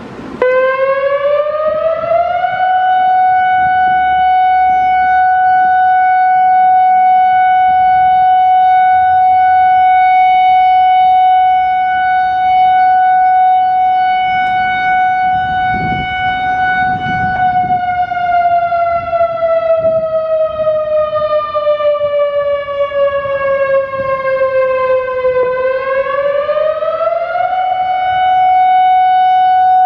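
American Signal I-Force STI-3200 electronic siren sounding its fire signal. The tone starts sharply just under half a second in, glides up to a high steady pitch and holds it for about fifteen seconds. It then slowly falls for about eight seconds and rises back to the high pitch.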